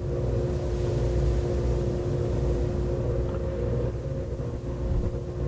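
Steady workshop machine hum: a low rumble with a constant drone over it, from shop machinery running in the background.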